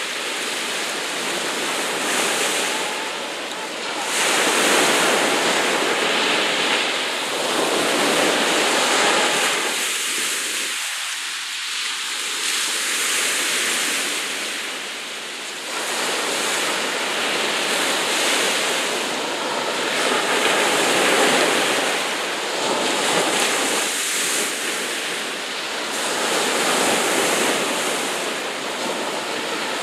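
Sea waves washing and breaking: a dense rushing noise that swells and eases every few seconds.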